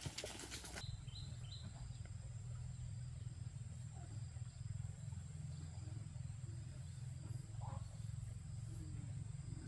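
Rural outdoor ambience: a burst of rustling clicks in the first second gives way to a steady low rumble, with a faint steady high-pitched whine and a few short chirps just after the change.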